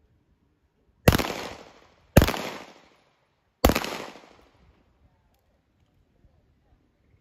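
Three handgun shots about a second and then a second and a half apart, each a sharp crack followed by a short echoing decay.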